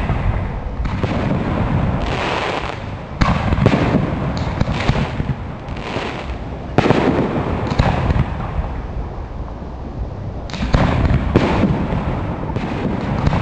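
Aerial fireworks display: about six shells burst in sudden booms a second or a few seconds apart, each followed by a noisy rumbling tail lasting a second or two.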